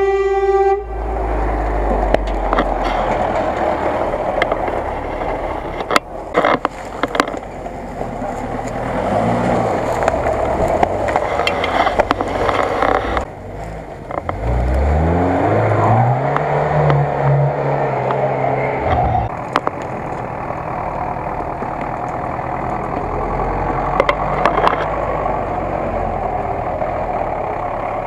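Off-road 4x4 engines running under load on a rough forest track. About fifteen seconds in, one revs up hard, holds high revs for a few seconds and drops back. Sharp knocks come now and then.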